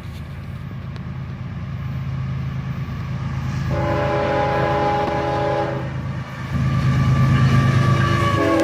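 Approaching freight train led by a GE ES44AH diesel locomotive: steady diesel engine rumble growing louder, with one multi-note horn blast of about two seconds near the middle and the horn sounding again right at the end.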